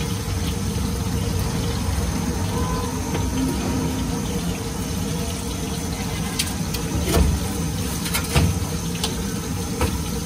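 Papad (popor) deep-frying in hot oil in an iron kadai, a steady sizzle over a steady low rumble. In the second half, several sharp clinks of the perforated metal skimmer against the pan.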